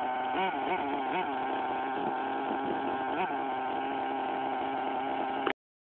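Small 3.5 cc nitro engine of an HPI Trophy 3.5 RC buggy running steadily, with several short throttle blips in the first few seconds. The sound cuts off abruptly near the end.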